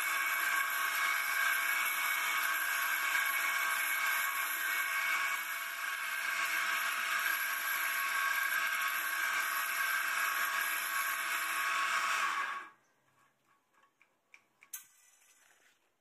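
Homemade copy lathe running with a steady, high motor whine that cuts off sharply about three-quarters of the way through as the machine is switched off, followed by a few faint clicks.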